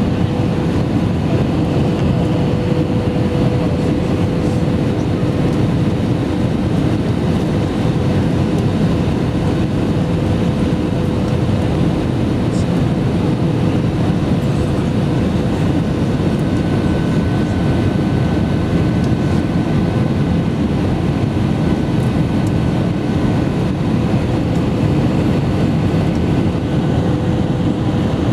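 Steady cabin noise inside an Airbus A320-family airliner on approach to land: jet engines and rushing air, with a steady droning tone throughout and a fainter higher tone joining in the second half.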